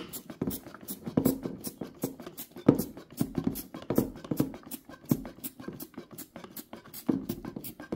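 Trigger spray bottle of Krud Kutter degreaser being squeezed over and over, a quick run of short sharp squirts and clicks, several a second, as the cleaner is sprayed onto the sewing machine part.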